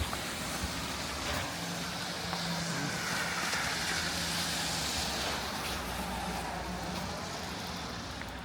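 A motor vehicle passing on a snowy city street: tyre hiss swelling for a few seconds and then easing, over a low steady engine hum.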